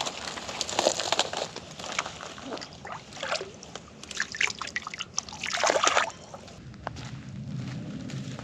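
Water sloshing and splashing in uneven bursts, loudest about six seconds in.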